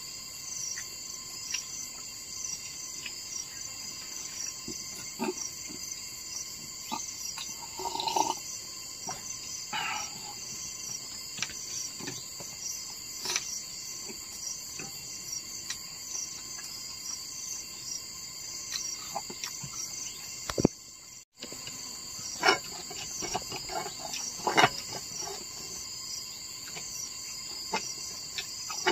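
Steady high-pitched chorus of insects, with scattered short clicks and knocks over it. The sound cuts out for a moment about three quarters of the way through.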